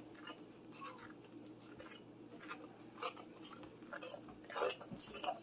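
Metal fork stirring a thick dough of biscuit mix, eggs and milk in a glass mixing bowl: faint, irregular scrapes and clicks of the fork against the glass.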